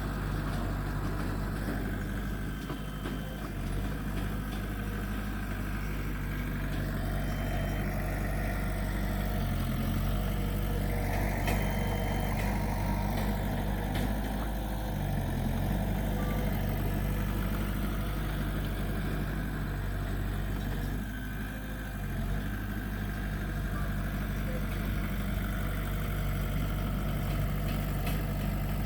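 Diesel engine of a Komatsu D20P crawler bulldozer running steadily. Its note shifts briefly a few times.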